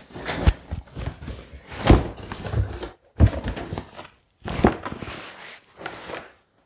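Large cardboard shipping box being handled and set down: a run of thumps, knocks and scraping rubs of cardboard, the loudest thump about two seconds in.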